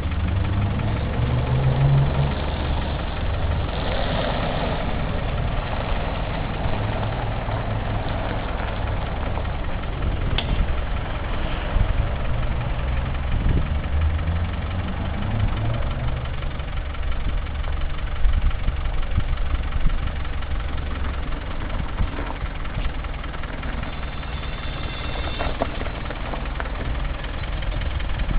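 Engine of a hydraulic-drive Land Rover Defender running steadily at low revs as the lifted truck creeps slowly up and over a kerb.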